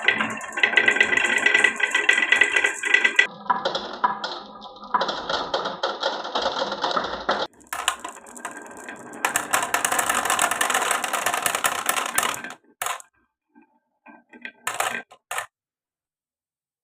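Marbles clattering down a wooden marble run in a dense stream of rapid clicks and rattles. Near the end it thins out to a few scattered clicks as the last marbles finish their run.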